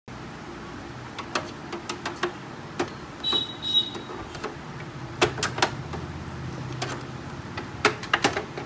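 Scattered plastic clicks and knocks as the outer plastic side cover of a Canon MF4820d laser printer is unclipped and pried off, with a brief high squeak about three seconds in, over a steady low hum.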